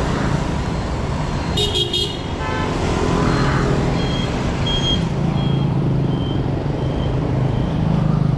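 City street traffic of motorbikes and cars, engines running steadily, with a short horn toot about two seconds in. Through the second half a faint high beep repeats a little faster than once a second.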